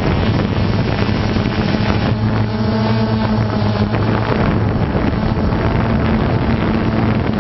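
Multirotor drone's propellers humming steadily, with wind rushing on the microphone.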